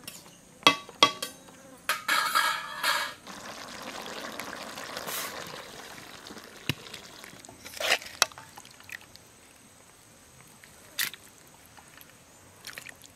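A metal kadai of freshly cooked bottle-gourd and small-fish curry being lifted off the fire and handled, with sharp clinks and clatters of the pan and a metal spoon. In between there is a softer, steady stretch of scraping and wet stirring, and a few more spoon clinks come near the end as the curry is ladled out.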